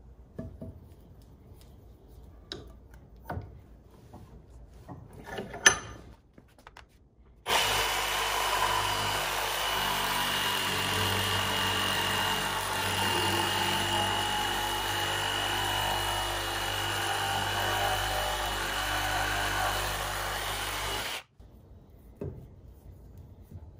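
Cordless one-handed reciprocating saw cutting through a thick ipe beam clamped in a bench vise: the motor and blade run steadily for about fourteen seconds with a constant high whine, then cut off suddenly. Before the cut, a few knocks as the wood is set in the vise.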